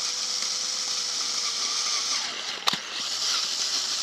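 Electric drill running steadily with a 14 mm bit, drilling out a motorcycle's stripped sump plug hole for a Helicoil thread repair. The motor slows about two-thirds of the way through, there is one sharp click, and it picks up speed again.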